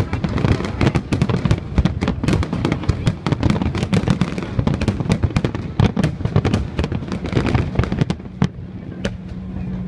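Aerial fireworks bursting in rapid succession, a dense run of bangs and crackles that thins out to a few scattered bursts over the last couple of seconds.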